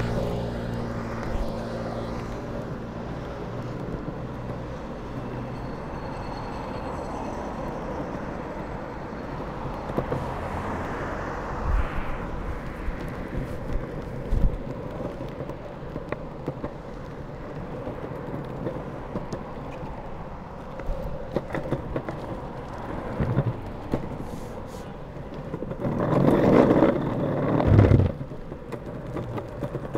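Drop-through longboard's urethane wheels rolling along an asphalt cycle path, a steady rumble with a few knocks over joints, as road traffic passes alongside and a motorcycle engine fades in the first couple of seconds. Near the end the rumble turns louder and rougher for a couple of seconds as the wheels go over brick paving.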